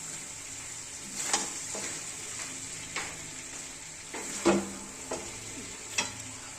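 Chicken frying in a pan with a steady sizzling hiss, while a spoon stirs it and knocks against the pan about five times, the loudest knock about four and a half seconds in.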